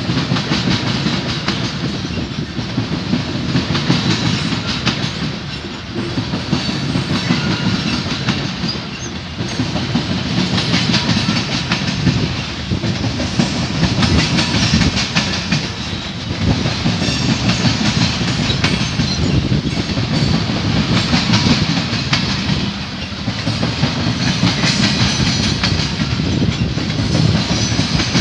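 Freight train of CSX covered hopper cars rolling past, steel wheels clicking over the rail joints over a continuous rumble that swells and dips every few seconds as the cars go by.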